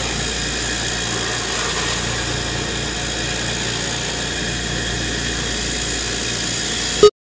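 Oil-free dry vacuum pump running steadily, with an even hiss of air and milky cutting fluid being sucked in through a vacuum fixture and hose into a clear liquid trap canister. A single brief loud pop near the end.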